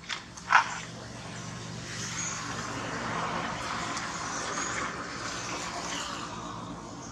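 A motor vehicle passing by: its noise swells over a few seconds and then fades. A brief sharp sound comes about half a second in.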